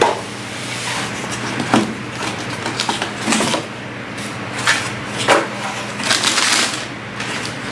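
Hands unpacking and handling the plastic parts and packaging of a Dyson V11 cordless vacuum: several separate knocks and clicks, then a stretch of rustling about six seconds in, over a steady low hum.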